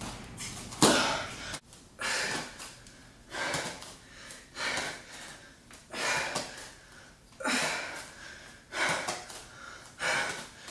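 A woman breathing hard from exertion, with strong hissing exhales repeating about every second and a half.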